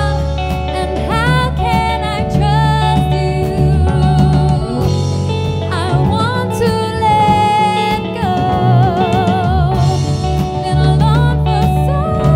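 Live band playing a dance song: a woman singing long held notes with vibrato over an electric bass guitar line.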